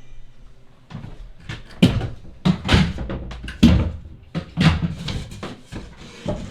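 Series of irregular wooden knocks and thumps as panels are shifted into position and clamped.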